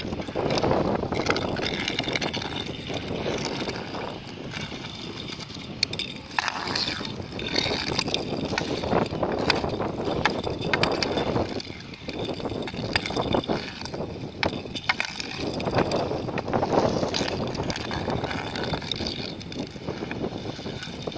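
Inline skate wheels rolling and grinding on rough asphalt, swelling and fading as the skater pushes and turns, with scattered sharp clicks of a hockey stick striking the puck.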